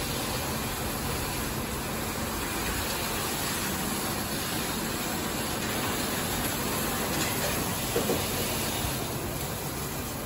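LaserWash M5 touchless car wash gantry traveling over a car, spraying high-pressure water: a steady hiss of spray over the machine's running noise. A brief thump about eight seconds in.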